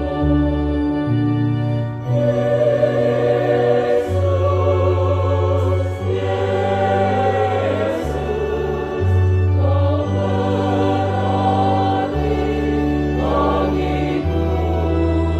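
Choir singing over steady, sustained low bass notes that change pitch every second or two.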